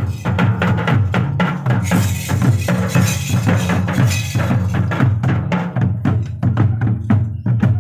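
Hand drumming on a two-headed barrel drum in a steady, repeating rhythm, with music running under it.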